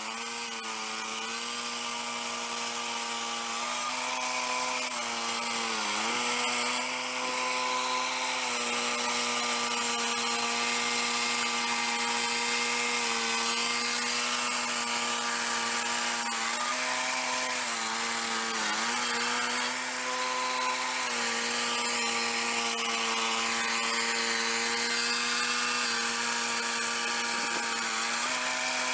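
Turbosawmill Model 8 swing-blade sawmill running: its 13 hp engine at full speed drives the circular blade as it cuts along a log, a steady high whine whose pitch sags briefly three times.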